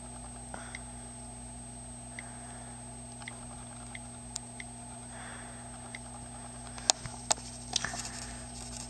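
iPod touch on-screen keyboard clicking faintly as letters are typed, one short tick every half second to a second or so. About seven seconds in come a few sharper, louder clicks and knocks, over a steady faint hum.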